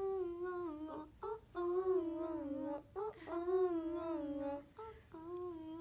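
A woman's solo singing voice, a recording played back, holding long notes in four phrases with short breaks between, the pitch wavering and stepping within each phrase.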